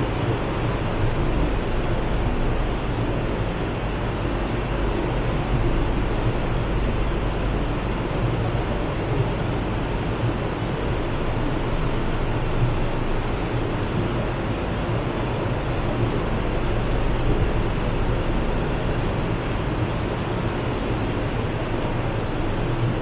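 Steady hum and rush of a stationary CSR Zhuzhou 'AMY' light rail train's onboard equipment while it stands with its doors open. The low hum is strongest, and there are no clanks, door chimes or other events.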